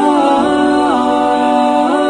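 Background music: a sung melody of long held notes that slide smoothly from one pitch to the next.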